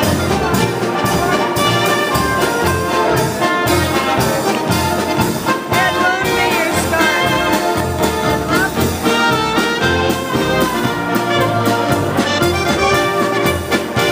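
Live polka band playing an instrumental passage: accordion and trumpet carry the tune over a steady bass and drum beat.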